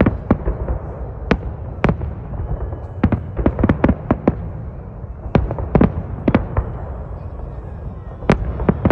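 Aerial firework shells bursting in an irregular series of sharp bangs, some single and some in quick clusters of several, the thickest about three to four seconds in and again around six seconds in, over a steady low rumble.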